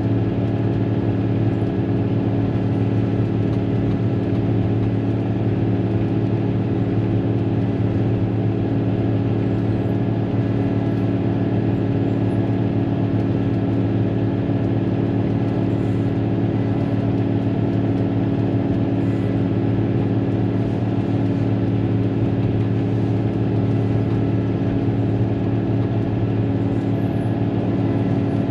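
Caterpillar motor grader's diesel engine running at a steady, unchanging pitch, heard from inside the cab.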